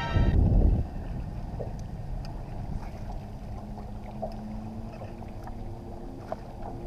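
Low, steady rumble of wind and water around a small fishing boat, opening with a short, loud low thump in the first second, with a few faint ticks.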